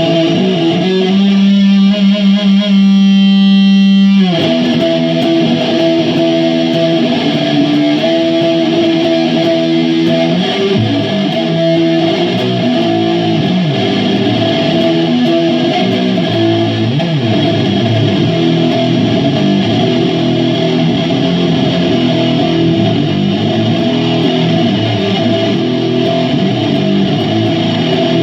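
Electric guitar played through effects: a long held note for the first few seconds, then a busy stream of notes with sliding pitches.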